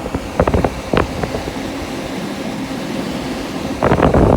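Amana ACE14 combination microwave-convection oven running with a steady fan hum. Two short bursts of clatter come through, one about half a second in and one near the end.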